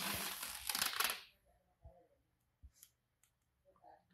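Rustling close to the microphone for about the first second, then a few faint clicks.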